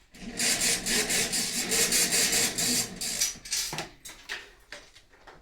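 Extension lead being pulled down from the ceiling: a loud rasping scrape with rapid, even ticking, about seven a second, lasting some three and a half seconds, then a couple of knocks.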